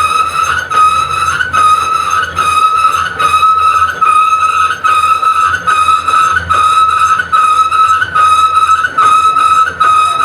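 Lathe cutting tool squealing on an engine cylinder head being finish-turned: a loud, high-pitched squeal that pulses in a steady rhythm somewhat under twice a second.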